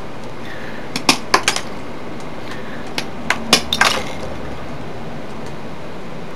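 Copper wire strands being snipped with wire cutters: a few sharp clicks about a second in, then another cluster around three and a half seconds, over a steady background hiss.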